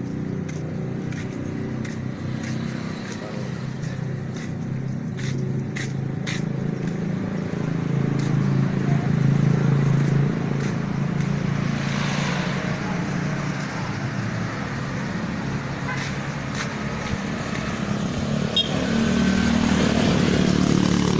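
Engines of lifted off-road 4x4 trucks running as they drive slowly past in a convoy, growing louder as one passes close about halfway through and again near the end.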